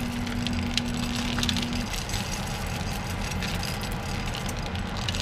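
Chocolate chips poured from a glass measuring cup, pattering onto a tray of saltine crackers as many small, light ticks, over a steady low hum. A faint steady tone in the hum stops about two seconds in.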